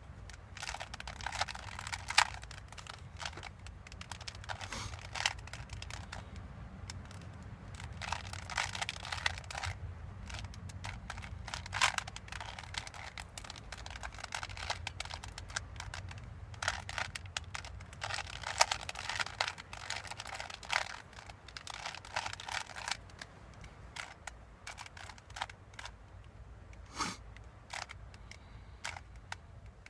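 Plastic Rubik's Cube being turned by hand, clicking and clattering in quick runs of turns with short pauses between, over a steady low hum.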